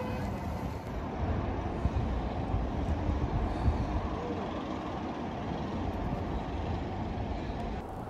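Street traffic: a steady low rumble of vehicles moving along a snow-covered city street.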